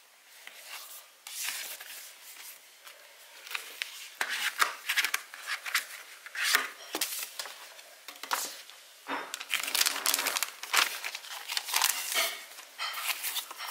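Cardboard envelope and plastic bag of a screen-protector film being opened and handled by hand: irregular crinkling, rustling and tearing, sparse at first and busier from about four seconds in.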